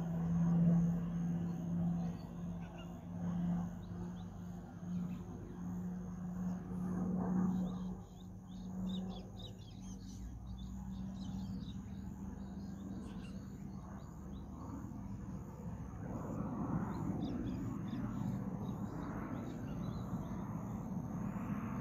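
Distant military aircraft droning in the sky: a steady, wavering hum that fades out about halfway through, then a broader rushing engine sound building over the last few seconds. Small birds chirp throughout.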